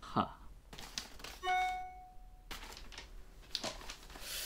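Phone notification chime, a single bell-like tone ringing for about a second, about one and a half seconds in, alerting to a new video upload. A few soft clicks come before and after it.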